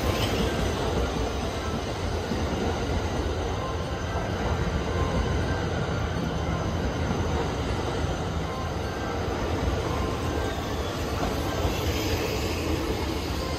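Cars of an E001-series train passing close by at speed: steady running noise of wheels on the rails.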